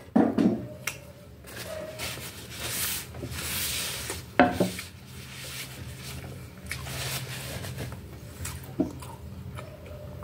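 A paper napkin rubbing across a wooden tabletop in two stretches, with a few sharp knocks on the table in between.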